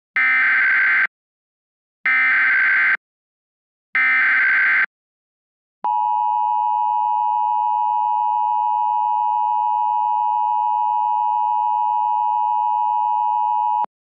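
Emergency Alert System activation: three short, loud digital data bursts (the SAME header) about two seconds apart, then the steady two-tone EAS attention signal held for about eight seconds and cutting off abruptly. It signals that an emergency alert message is about to be broadcast.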